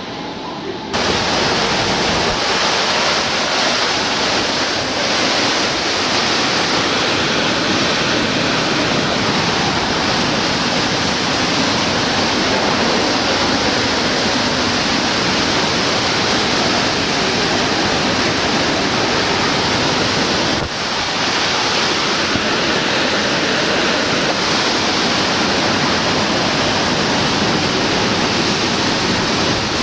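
Hurricane wind and rain making a loud, steady rushing noise. It gets suddenly louder about a second in.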